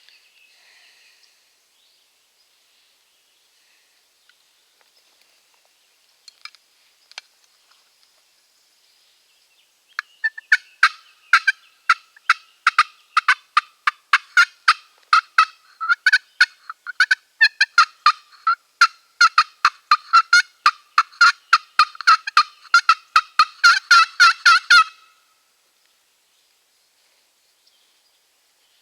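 A turkey call sounding a long run of loud, short hen-style yelping notes. The notes start about a third of the way in, come faster and more tightly packed near the end, and stop abruptly.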